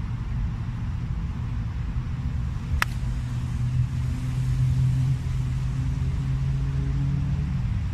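A 6-iron strikes a golf ball: one sharp click about three seconds in. Under it runs a steady low engine drone, strongest around the middle and fading out near the end.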